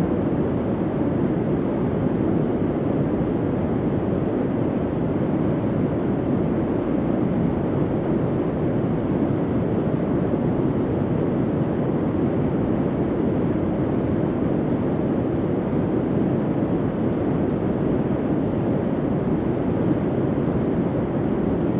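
Steady, soft, low hum of a bunker ambience: an even, noisy drone that does not change.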